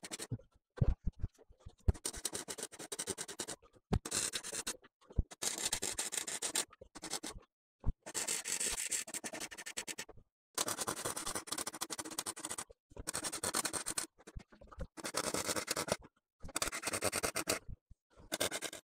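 MIG welder crackling in short bursts as stitch welds are laid along the car's engine bay seams, each run lasting a second or two and cutting off suddenly between welds, with a few sharp clicks near the start.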